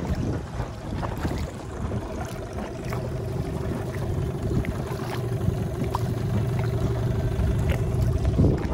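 A boat's motor running steadily as the boat moves over the water; its hum settles into a steady tone a couple of seconds in.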